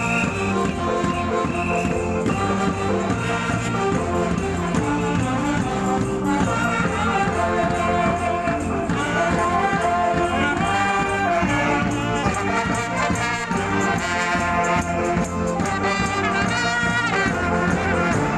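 Women's funeral band playing a tune: a melody moving over a steady repeating bass beat.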